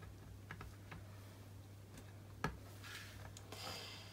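Faint taps and light rustling of fingers pressing and smoothing the plastic cover film down onto a diamond painting canvas, with one sharper click about two and a half seconds in.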